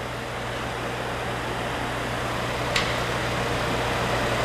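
Breddo LDT150 liquefier being cycled: its 25 hp bottom-mounted motor and impeller run with a steady hum and whir that grows gradually louder. A single sharp click comes about two-thirds of the way in.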